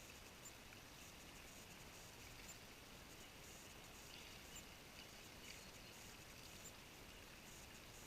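Near silence: faint steady outdoor background hiss with a few soft ticks.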